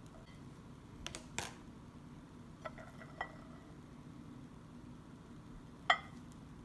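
A few light clicks and knocks over a low steady hum, the sharpest and loudest one about six seconds in.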